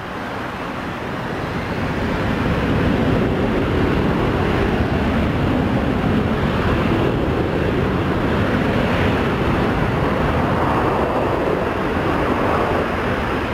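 Airbus A321 jet engines spooling up to takeoff power at the start of its takeoff roll: a roar that rises over the first couple of seconds, then holds steady.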